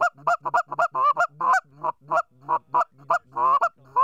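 Canada goose call blown in a fast run of short clucks and honks, about three or four a second, each note breaking from a low tone up to a high one. This is the close-in calling used to bring geese in as they get nearer.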